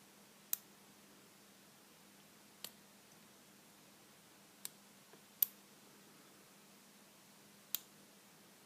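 Lock picking in a Lockwood 334C45 spool-pin padlock: five short, sharp clicks of the pick and tension wrench against the pins and core, spaced irregularly a second or two apart.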